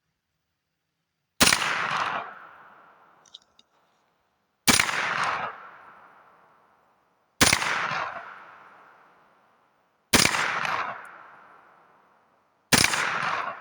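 Five single shots from a Bear Creek Arsenal BC9 9mm carbine firing 124-grain full metal jacket rounds, spaced about two and a half to three seconds apart. Each crack is followed by an echo that dies away over a second or so.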